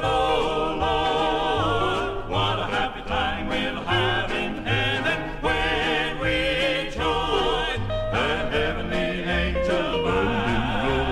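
Southern gospel quartet recording playing on without clear words: wavering, vibrato melody lines over a bass line that sounds on each beat.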